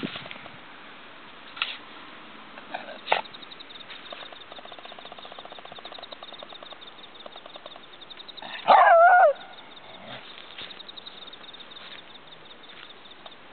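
A beagle gives one loud, wavering bark-howl lasting under a second, about nine seconds in. A few sharp knocks come earlier, in the first three seconds.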